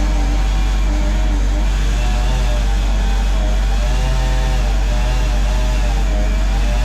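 Excavator engine running steadily under load, with a whine whose pitch rises and falls every second or so as the machine works.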